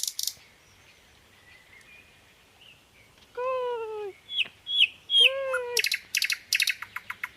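Birds chirping in quick runs of short high notes, which stop briefly and start again about six seconds in. In between come a few short high notes and two short, falling calls.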